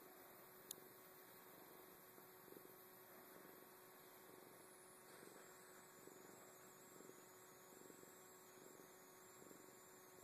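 Faint purring of a domestic cat being stroked, a soft pulse about once a second, under a steady electrical hum from the recording, with one brief click near the start.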